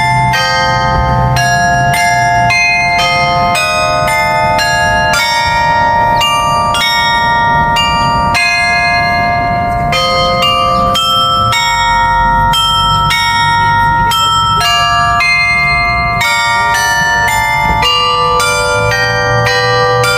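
A tower carillon of 35 bells playing a slow melody, about two struck bell notes a second, each ringing on under the next.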